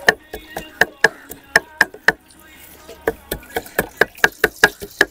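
Knife chopping food on a board: a run of sharp strikes, a short pause just after two seconds in, then quicker strikes.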